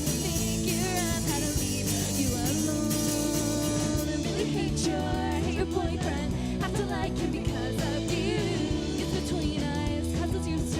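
Rock band playing a song live: a sung lead vocal over electric guitar and drum kit in a punk-pop style.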